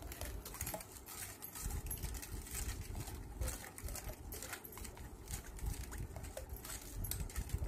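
Steel spoon stirring colostrum and sugar in a stainless steel bowl, with irregular scraping and clicking against the sides and bottom of the bowl.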